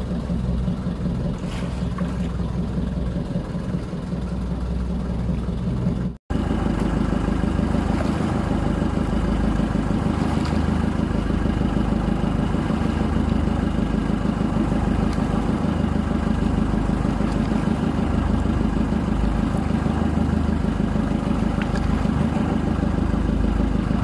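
Outrigger fishing boat's engine running steadily at a constant speed. The sound drops out for an instant about six seconds in, then the engine carries on slightly louder.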